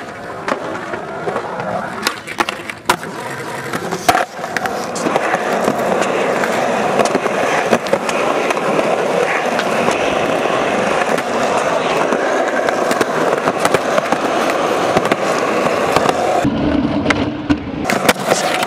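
Skateboard wheels rolling over concrete, a steady rumble through most of the stretch. Sharp clacks of the board hitting the ground come in the first few seconds and again near the end.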